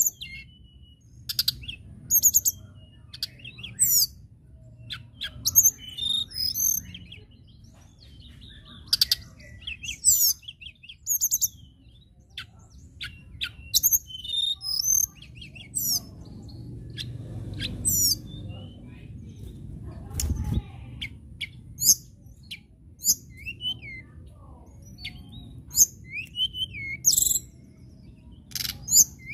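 Caged blue flycatcher (tledekan, a Cyornis flycatcher) singing: phrases of high, quick whistled notes and rapid fluttering trills, repeated again and again with short pauses between them.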